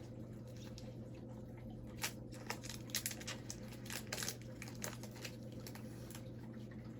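A foil hockey card pack being torn open by hand, with scattered crinkles and small rips for a few seconds. The wrapper does not tear cleanly. A steady low hum runs underneath.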